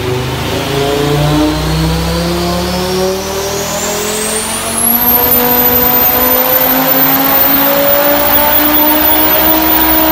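Ford Focus RS Mk2's tuned 2.5-litre turbocharged five-cylinder engine making a full-throttle pull on a hub dyno, at about 1010 bhp: the engine note climbs steadily through the revs under load. A high whine rises alongside it and levels off about halfway, where the whole sound gets louder.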